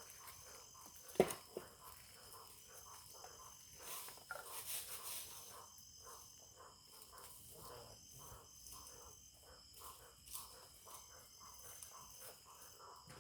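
Crickets chirring steadily in a high, even trill, with one sharp knock about a second in and faint irregular ticks throughout.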